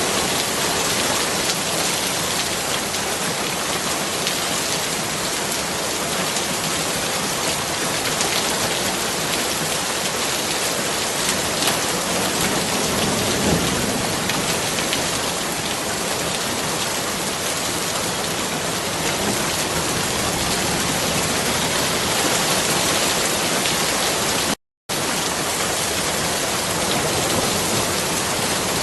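Steady rain falling, an even dense hiss with scattered drops. The sound cuts out completely for a split second near the end.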